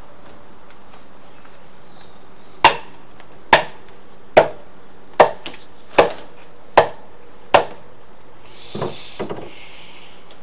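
Hammer blows on timber during deck building: seven sharp, evenly spaced strikes a little under a second apart, followed by a few lighter knocks.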